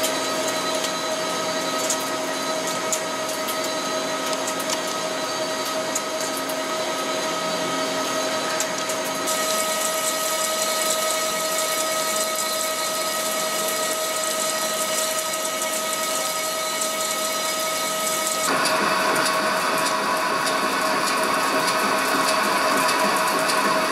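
Vertical turning center cutting SCM430 steel with carbide insert tools: a steady machine whine over a hiss of cutting noise. The sound changes abruptly twice, about nine and eighteen seconds in, as the work moves from face finishing to face roughing to inner-diameter roughing.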